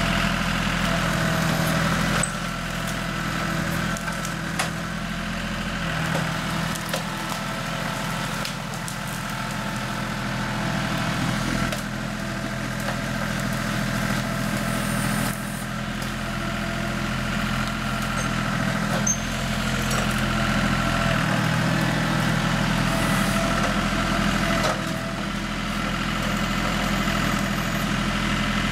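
John Deere 5403 tractor's three-cylinder diesel engine running steadily under working load as the front-loader grapple pushes and lifts brush. The engine drops a little in level about two seconds in and comes back up near the end, with occasional sharp knocks and cracks over it.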